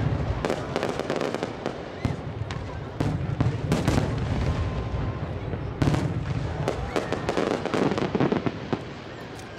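Aerial fireworks shells bursting with deep booms about three seconds apart, each followed by dense crackling from crackle stars. The crackling thins out and the sound drops away near the end.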